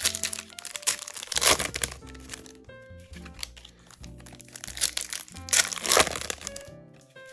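Foil booster-pack wrappers being torn open and crinkled, loudest about a second and a half in and again near six seconds, over background music.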